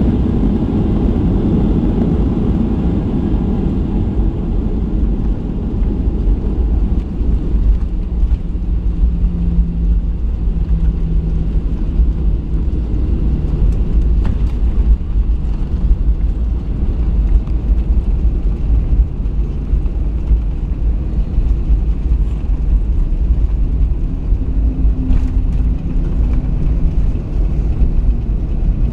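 Inside the cabin of a Boeing 737-800 rolling out on the runway after landing: a heavy, steady low rumble of the wheels and engines. It is loudest in the first few seconds, then eases as the jet slows.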